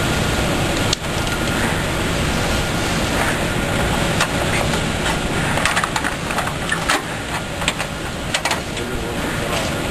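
Automatic PCB component insertion machine running: steady mechanical noise with irregular sharp clicks, most of them from about four to nine seconds in.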